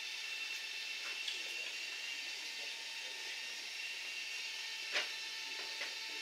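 A few light clicks and knocks of hand work on an outboard motor's mounting, the sharpest about five seconds in, over a steady hiss with a faint high whine.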